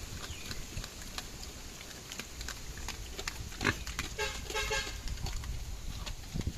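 Native pigs chewing bananas, with many crisp, crunchy chomping clicks. A short pitched pig squeal comes about four seconds in.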